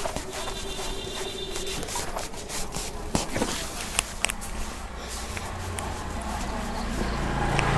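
Hands working over skin and hair in a head and upper-body massage, rustling, with scattered sharp taps or clicks. A low hum rises in over the last few seconds.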